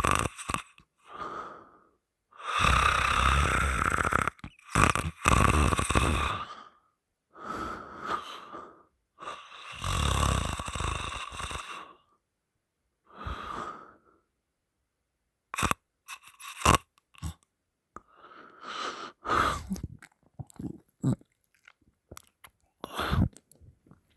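A person snoring with the mouth open: wheezy, rasping breaths, each lasting a second or two and coming every few seconds. A few short clicks and smacks fall around the middle.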